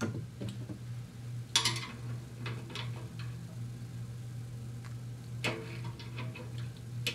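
Small metal clicks and taps of a wrench working the rocker-arm adjusting nut on a Briggs & Stratton overhead-valve engine, as the valve lash is loosened off for more clearance. A steady low hum runs underneath.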